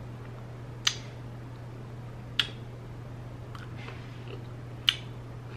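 Three short, sharp clicks from eating ice cream with a metal spoon, over a steady low hum.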